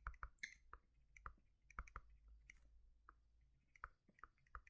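Near silence broken by faint, irregular small clicks and ticks, about a dozen and a half of them.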